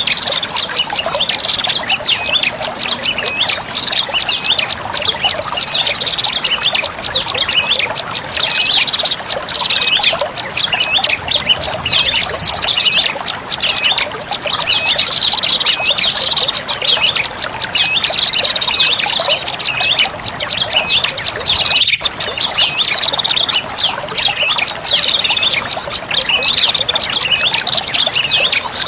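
Prenjak lumut bird calling as a lure recording: a loud, rapid, continuous chattering trill with phrases repeating every second or two.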